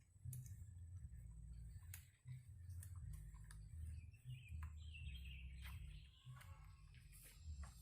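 Faint bird calls, with a short warbling call falling in pitch about halfway through, over a low rumble and occasional light clicks.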